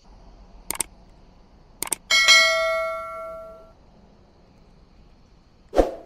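Subscribe-button overlay sound effects: two quick pairs of clicks about a second apart, then a bright notification-bell ding that rings out for about a second and a half, and a short whoosh near the end.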